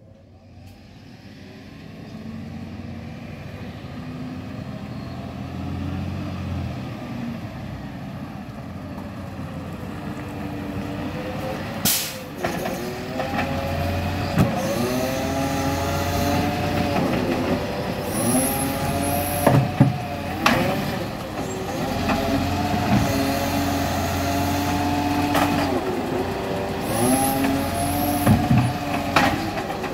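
Side-loader garbage truck's diesel engine approaching and growing steadily louder, then a sharp air-brake hiss about twelve seconds in as it stops at the bins. Its engine then rises and falls in speed again and again while the hydraulic side arm reaches out for a bin, with a few short hisses of air.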